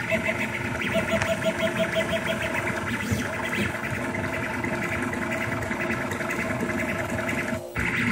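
Rostock MAX delta 3D printer printing: its stepper motors whine in short, quickly repeated moves over a steady hum. The sound drops out briefly near the end.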